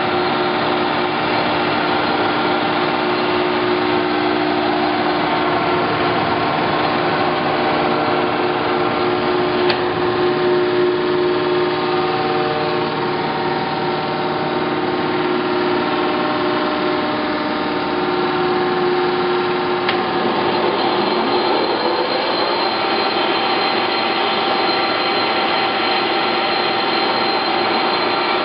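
Clausing Colchester 1755 geared-head engine lathe running, its headstock gears and drive giving a steady hum with a whine of several tones. About twenty seconds in, the pitch glides upward and settles into a new steady tone as the spindle speed changes.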